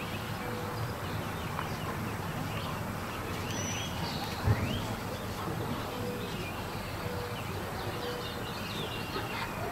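Outdoor ambience: birds chirping now and then over a steady low rumble, with a single dull thump about four and a half seconds in.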